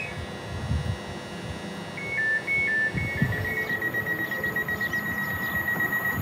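High electronic tones from a Class 345 electric train beside the platform: about two seconds in, a few quick alternating high-low steps, then one steady high whine.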